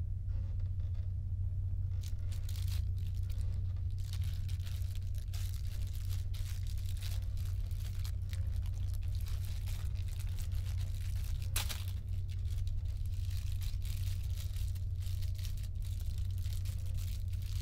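Plastic wrapper of a frozen burrito being torn open and crinkled by hand, in irregular rustling bursts from about two seconds in, with one sharp tear about two-thirds of the way through. A steady low hum sits underneath.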